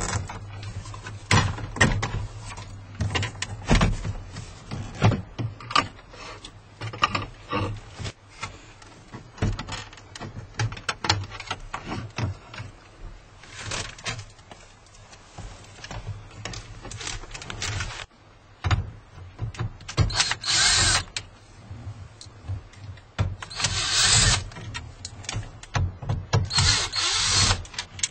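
Plastic dash trim clicking and knocking as it is pried and worked free, then four short runs of a power screwdriver, each about a second, spaced a few seconds apart.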